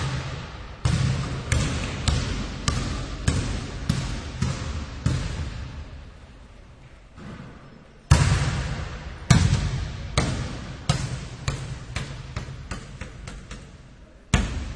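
A basketball being bounced, each bounce a sharp smack with a short ringing tail. Bounces come about one or two a second, pause briefly about halfway, then start again loud and come quicker and softer.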